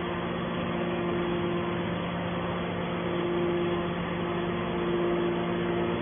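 Steady hum of a hydraulic metal baler's power unit, its electric motor driving the hydraulic pump, with a low tone held throughout and a higher tone that swells and fades.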